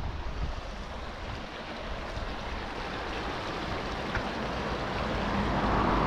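Road traffic noise: the tyre hiss of a passing car grows louder near the end, over a steady wash of traffic, with some wind rumble on the microphone at the start.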